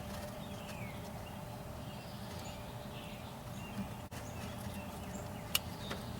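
Quiet outdoor background with birds calling, including a descending whistle near the start, and one sharp click about five and a half seconds in.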